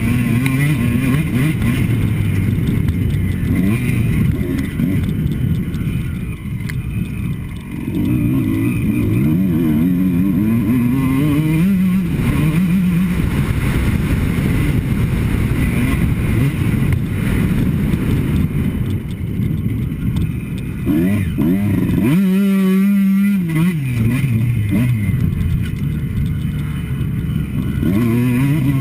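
Kawasaki KX two-stroke motocross bike engine under hard riding, its revs repeatedly rising and dropping with throttle and gear changes. About two-thirds of the way through the note holds steady for a moment.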